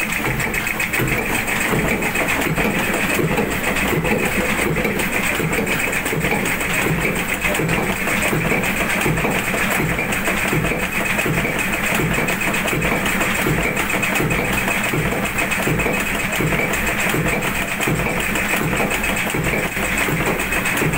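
Old tug boat's diesel engine running steadily with an even, repeating beat, heard up close in the engine room.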